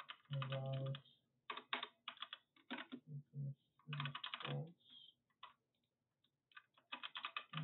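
Computer keyboard being typed on in quick bursts of keystrokes with short pauses between them.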